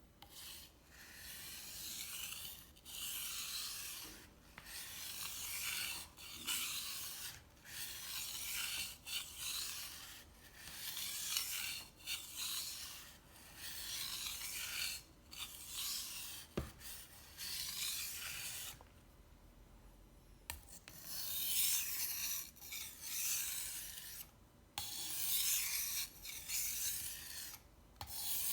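Knife blade being stroked back and forth across a wet fine-grit whetstone of a Wüsthof Tri-Stone sharpener: a steady series of gritty scraping strokes, roughly one a second, with a pause of about two seconds about two-thirds of the way through.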